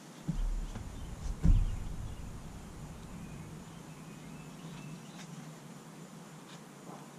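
Two dull thumps about a second apart, the second the louder, as a fiberglassed foam panel is handled on a plastic-covered workbench, followed by low rustling and a few short, faint high squeaks.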